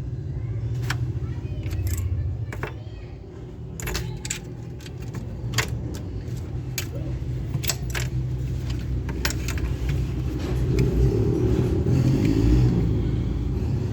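Scattered sharp clicks and light clatter of small hard parts being handled, as when a toy gun is being opened and worked on, over a steady low rumble.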